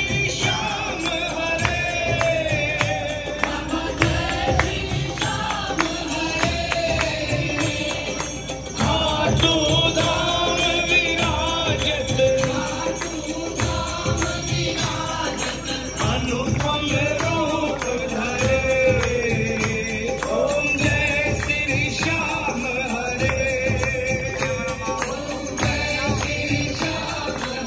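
Hindu devotional bhajan: voices singing together over a steady drum beat and jingling percussion.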